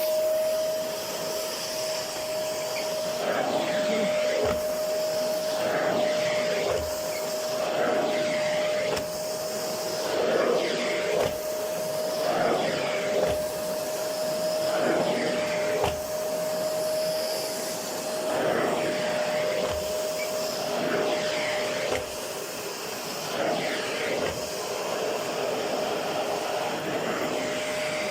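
LG 2000-watt bagless vacuum cleaner switching on and running with a steady motor whine and rushing suction. The floor head is pushed back and forth, so the suction sound surges with a soft knock every second or two.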